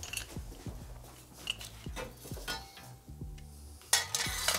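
Metal parts of a Puch moped's original exhaust being handled and fitted together, light clinks then a loud metallic scrape and clatter about four seconds in, over quiet background music.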